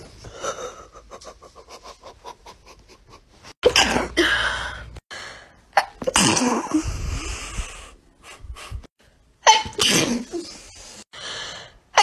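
People sneezing, several separate sneezes. A run of quick, short breaths comes first, then loud sneezes about four seconds in, around six seconds and near ten seconds.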